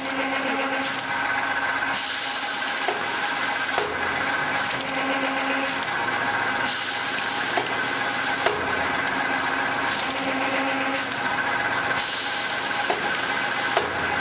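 WJQ-D paper tube recutter running: a steady machine hum with a high whine, broken every few seconds by spells of hiss and a few light knocks as tubes are fed and cut.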